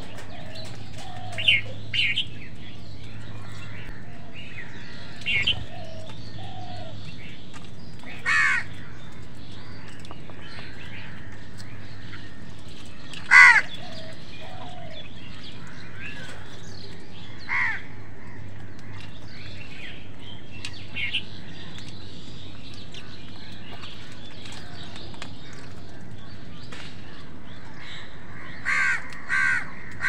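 House crows cawing now and then: single caws several seconds apart, the loudest about halfway through, then a quick run of caws near the end, over a steady background hiss.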